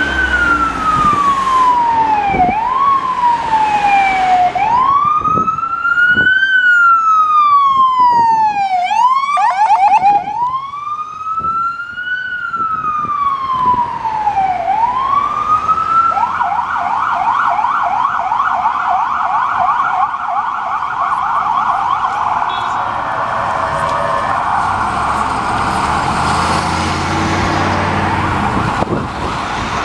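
Ambulance siren in street traffic. A slow rising-and-falling wail runs first, broken briefly by a quick yelp about nine seconds in. About halfway through it switches to a rapid yelp that runs until near the end, over a low rumble of engines.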